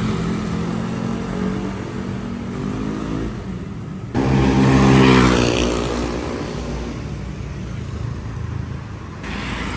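Street traffic of motorbikes and cars going by. About four seconds in, a vehicle passes close, its engine loudest as it goes by and falling in pitch.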